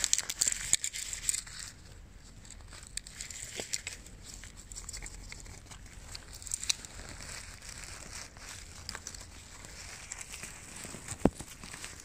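Dry pine needles and twigs rustling and crackling as a gloved hand and knife work around mushrooms in the forest litter. There is a run of quick crackles at the start and a single sharp click near the end.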